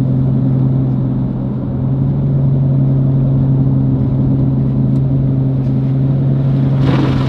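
Corvette's V8 engine running steadily at low cruising speed, a constant low drone with no change in pitch. A short rush of noise comes just before the end.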